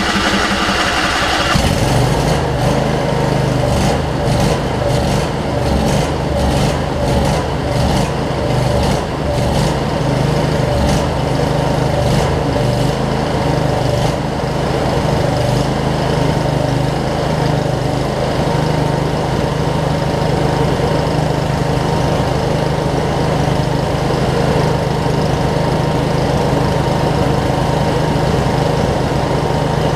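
Starter cranking the 25 hp Briggs & Stratton V-twin of a Craftsman riding mower, which catches about a second and a half in. It runs with repeated sharp pops for the first dozen seconds or so, then settles into a steady run.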